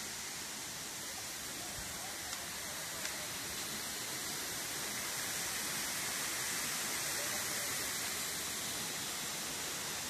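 Steady rushing of a mountain stream and waterfall, an even hiss, with a couple of faint knocks a few seconds in.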